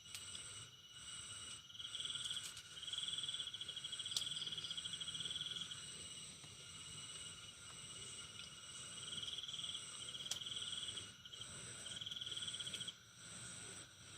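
Chorus of night insects, crickets among them. A steady high-pitched buzz pulses about once a second, while trills come and go in bursts of one to three seconds.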